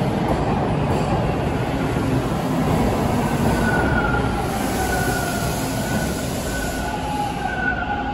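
TTC T1 subway train slowing into the station: steady rumble of the cars on the rails. From about three seconds in, a high whine joins it and sinks a little in pitch as the train decelerates.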